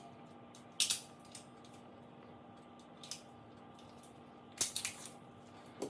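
Sharp clicks and clacks of a Taurus G2C 9mm pistol's parts being handled as it is field-stripped: one loud click about a second in, a few light ticks, and a quick cluster of clacks near the end.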